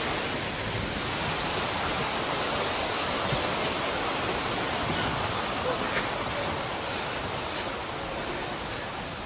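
Steady, even rush of moving water, as of tsunami floodwater surging.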